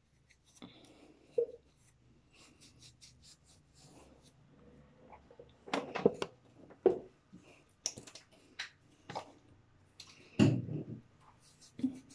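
Quiet handling sounds of makeup removal with cotton pads: scattered small clicks, taps and rubbing, with a few louder short knocks about six, seven and ten and a half seconds in.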